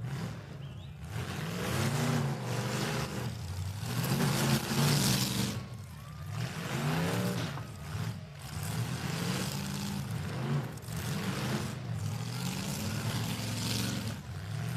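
Demolition derby car engines revving up and falling back again and again, in surges every couple of seconds, as the cars manoeuvre and back up to ram each other.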